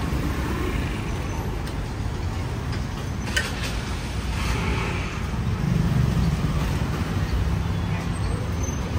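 Road traffic on a wet street: cars and motorbikes passing with a steady low rumble, swelling briefly about six seconds in, and a sharp click about three and a half seconds in.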